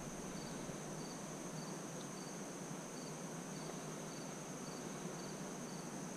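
Insect chorus: a steady high drone with a short, higher chirp repeating about every half second.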